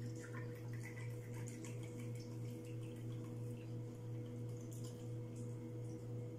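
Faint trickle of rum poured from a bottle into a stainless steel jigger, over a steady low hum.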